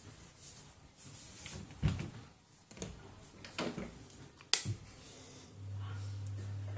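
Knocks and rustles of movement in a small room, with a sharp click of a wall switch about four and a half seconds in. About a second later a steady low electrical mains hum starts and keeps going.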